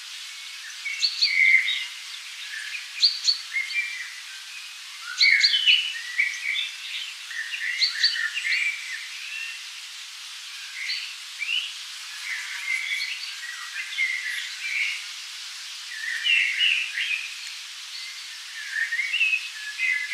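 Forest birds singing: many short chirps and warbled phrases from several birds, overlapping and coming in clusters every second or two, over a faint steady hiss.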